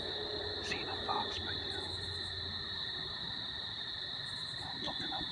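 Steady, high-pitched trilling of crickets in an evening insect chorus, with a few faint clicks and short chirps now and then.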